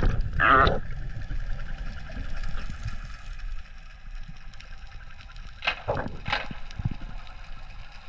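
Sea water heard as the camera goes under: surface splashing and sloshing at the start, a short muffled sound just after, then the dull low rush of being underwater, broken by two short bubbling bursts about six seconds in.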